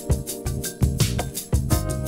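Background music with a steady drum beat and sustained instrument notes.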